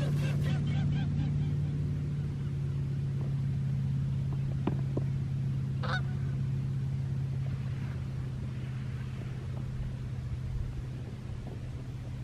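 Canada geese honking in a quick run of calls during the first second or so, then one more short call about six seconds in, over a steady low hum.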